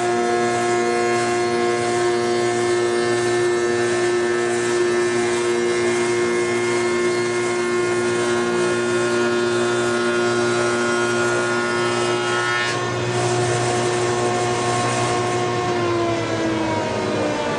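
Woodworking spindle shaper running with its dust collection: a steady electric-motor hum with a wash of noise. About three-quarters of the way through, a motor is switched off and its hum begins to slide down in pitch as it coasts down.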